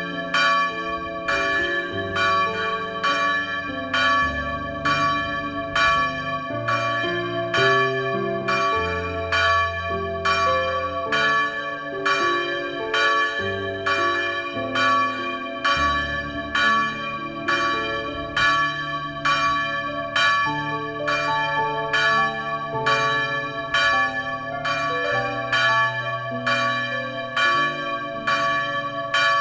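Church bells ringing to call the faithful to Mass: several bells of different pitches struck in an even, unbroken stream a little faster than one stroke a second, each stroke ringing on into the next while the lower notes shift from stroke to stroke.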